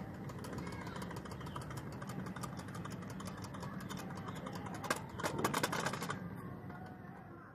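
Rapid, irregular clicking and rattling of small hard plastic toy parts, denser and louder about five seconds in and stopping about a second later, over a steady low hum.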